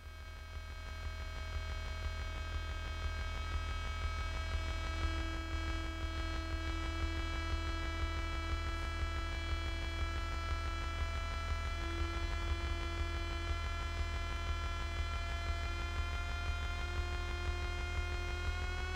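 Sustained electronic keyboard drone through an amplifier: a steady held chord over a heavy low hum. It swells in over the first few seconds, and its upper notes slide slightly upward near the end.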